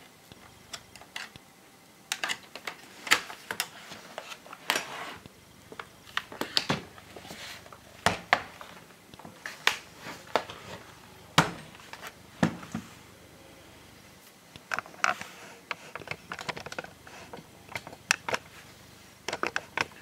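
Irregular sharp plastic clicks and snaps as the bottom base panel of an MSI gaming laptop is pried away from the chassis with a plastic pry tool, with one louder snap a little past the middle.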